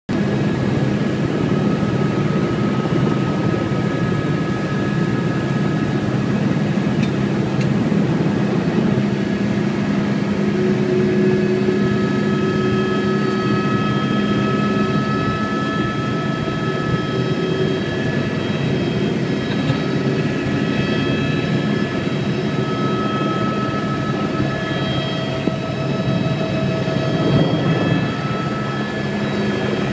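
Helicopter engine and rotor running, heard from inside the cabin: a loud, steady drone with several high whining tones over it.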